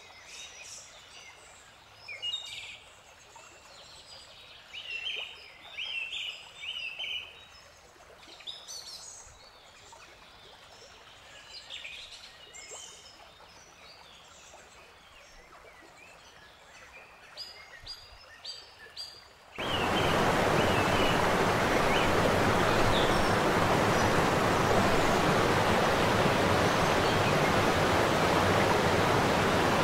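Scattered bird chirps over faint outdoor ambience. About two-thirds of the way in, a sudden cut brings in the loud, steady rush of Snoqualmie Falls.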